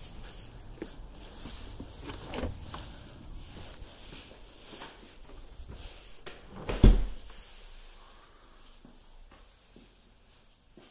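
Front door being opened and shut, with one heavy thump about seven seconds in as it closes, after some small clicks and handling noise.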